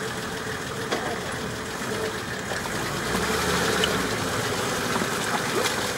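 Nissan Patrol's engine running as the 4x4 works through deep mud, growing louder and heavier about three seconds in as it pulls forward.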